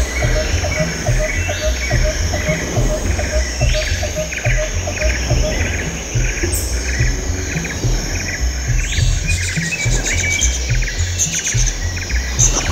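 Background music with a pulsing low bass line, laid under jungle ambience of short repeated bird chirps and insect sounds. A regular ticking runs along with it and stops about halfway.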